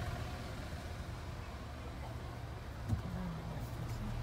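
Low, steady rumble of a car heard from inside the cabin as it creeps along at low speed, with a single short knock about three seconds in.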